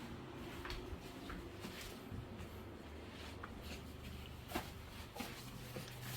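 Scattered light clicks and knocks over a low steady hum.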